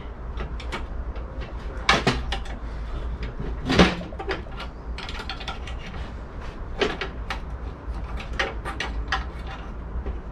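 A screwdriver clicking, scraping and knocking against the Sinclair C5's steel frame as a part is pried out, with louder knocks about two and four seconds in.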